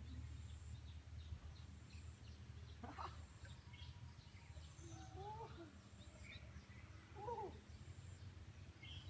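Faint outdoor ambience: a steady low rumble, with distant birds chirping and calling now and then.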